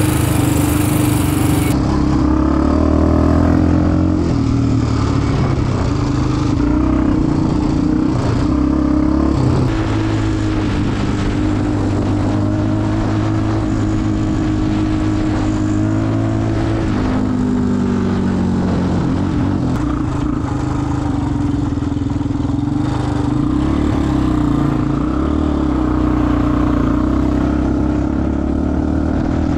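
Yamaha Raptor 350 ATV's single-cylinder four-stroke engine running under way as the quad is ridden; the engine note drops about seventeen seconds in and then comes back up.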